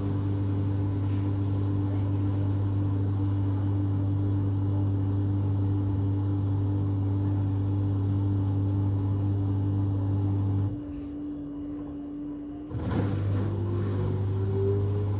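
LG washing machine's drum motor running with a steady hum and a heavy low buzz of vibration. It cuts out about eleven seconds in, then starts again two seconds later, its pitch rising as the drum speeds up.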